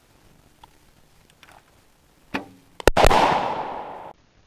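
A bow string snaps on release. About half a second later a Firebird binary exploding target detonates on the arrow's impact with a loud bang, whose boom rolls away for about a second before cutting off.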